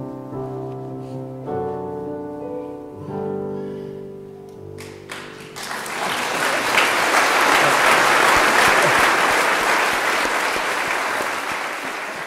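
Slow piano chords, then about five seconds in a crowd bursts into loud, sustained applause that drowns out the piano and fades near the end.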